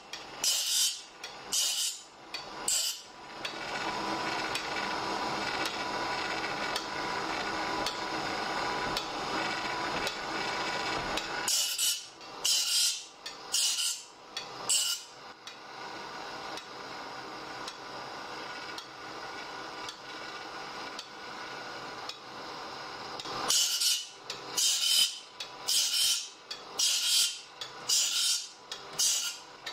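Automatic saw-sharpening machine grinding the teeth of a frame-saw blade: the grinding wheel bites each tooth in turn with a short, high rasp, a little over one a second. Twice the strokes give way to several seconds of steadier machine running before the rhythmic rasps return.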